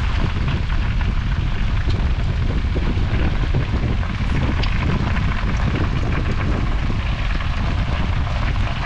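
Steady rumbling noise of wind buffeting the microphone, with water splashing in a boat's flooded fish hold as a large grouper is held in it.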